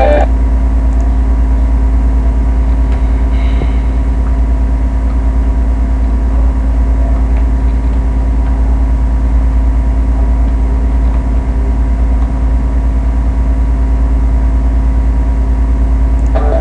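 A guitar startup sound cuts off right at the start. After that, only a loud, steady electrical hum is heard: a strong low drone with several steady tones above it.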